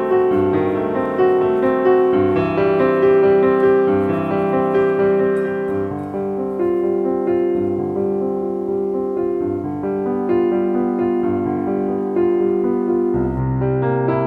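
Background piano music: a gentle keyboard melody played continuously.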